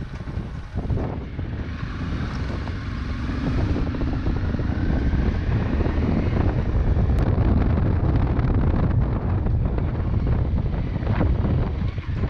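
Dual-sport motorcycle engine running while riding, buried under heavy wind buffeting on the microphone.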